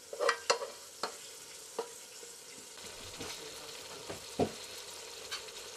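Pieces of meat on the bone sizzling in butter, onion and pepper paste in a metal pressure-cooker pot as they are stirred with a wooden spoon, with a few sharp knocks against the pot, mostly in the first second and once more near the end.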